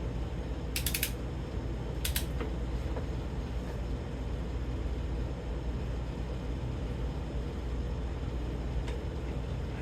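Steady low hum of a shop fan, with two short bursts of metal clicks about one and two seconds in, from a socket wrench being worked onto the differential's bolts.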